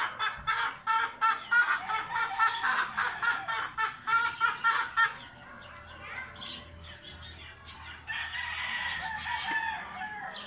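Chickens clucking in quick repeated calls for about the first five seconds, then a long drawn-out call near the end like a rooster crowing.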